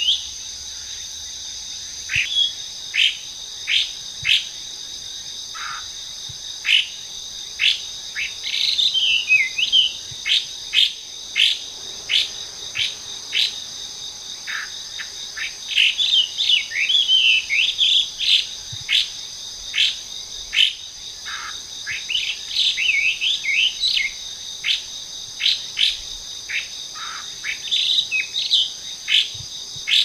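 Chinese hwamei (melodious laughingthrush) singing: clear down-slurred whistles about once a second, broken several times by bursts of rapid, varied warbling, over a steady high-pitched insect drone.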